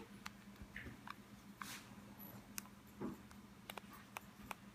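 Faint scattered clicks and brief rustles of handling over a low steady hum.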